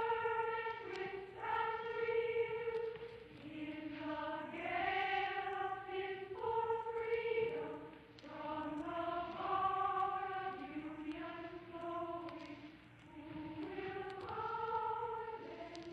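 A choir singing a slow melody in unison, in long held notes that step up and down in pitch.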